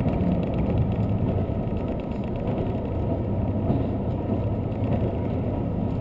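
Diesel limited-express train running, heard from inside the passenger car: a steady low rumble of engine and running gear.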